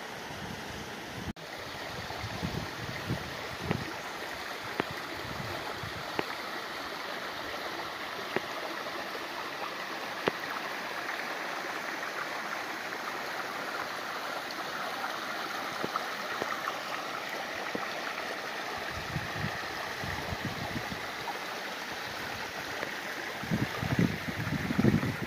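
A small mountain creek running over rocks: a steady rush of flowing water. It drops out for an instant about a second in. Low muffled bumps on the microphone come early and again toward the end, loudest near the end.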